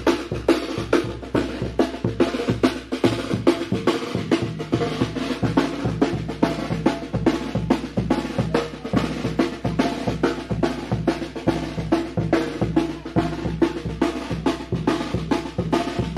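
Band music driven by snare and bass drum in a quick, even beat, over sustained low melodic tones.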